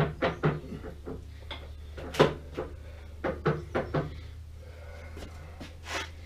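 Irregular metal clinks and knocks of hand tools against the lathe's iron parts, about a dozen scattered strikes with the sharpest a little past two seconds in, over a steady low hum.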